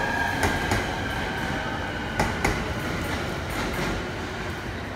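A 15-car electric commuter train pulls out of the station, its cars rolling past. The wheels clack over rail joints in pairs, twice, and a high whine fades away over the first couple of seconds.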